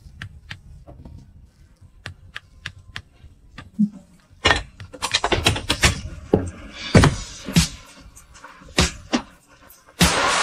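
Kitchen handling sounds: light clicks and taps of utensils and a toaster oven, sparse at first and coming thick and fast about halfway through. A steady rushing noise starts near the end.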